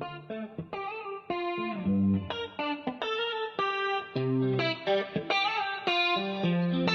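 Music: an electric guitar picking a melody of single notes, one after another, as the instrumental intro to a worship song before the singing comes in.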